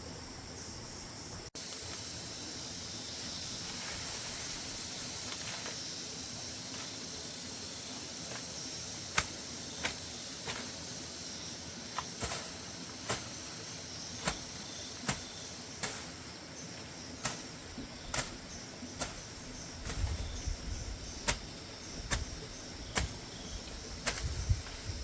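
A series of sharp knocks or snaps, about one a second, over a steady high hiss.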